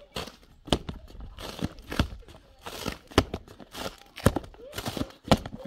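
Irregular sharp knocks about half a second to a second apart, with crumbling, scraping noise between them.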